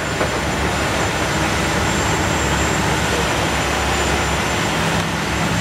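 Steady drone of boat engines under the rush of bow wash as a naval patrol boat runs close alongside a fishing trawler at speed.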